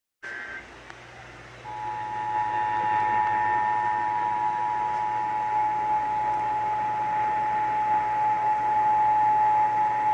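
Emergency Alert System two-tone attention signal: two steady tones near 853 Hz and 960 Hz sounded together over a radio broadcast, starting about a second and a half in and held unbroken. It sits over steady radio hiss and a low hum, after a short burst of higher data tones at the very start.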